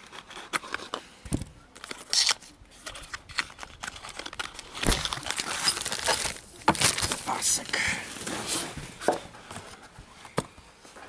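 Plastic packaging bag crinkling and cardboard inserts rustling and scraping as accessories are taken out of a box, in an uneven run of crackly rustles that is busiest in the middle.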